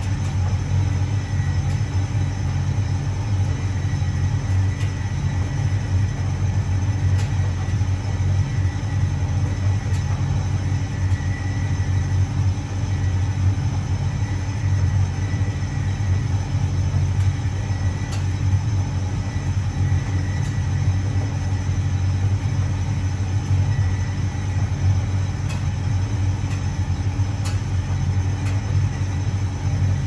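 Hotpoint Reversomatic 9327 vented tumble dryer running on its low heat setting: a steady low rumble of the motor and turning drum. Faint light ticks come through now and then.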